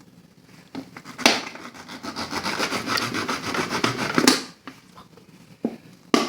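A knife sawing through a plastic Coca-Cola bottle: a rasping scrape with two sharp clicks, about a second in and near four seconds, then a few short clicks near the end.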